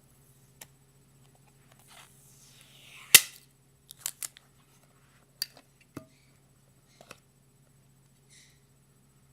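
Packaging handled during an unboxing. A rustle builds for about a second and ends in one sharp loud snap, followed by several lighter clicks and taps.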